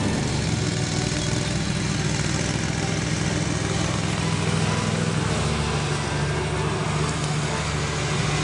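Husqvarna lawn tractor's engine running at a steady pitch while driving with the mower deck cutting grass.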